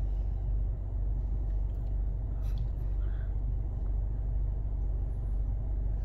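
Steady low rumble of a Honda Accord idling, heard from inside the cabin, with a couple of faint ticks about two seconds in.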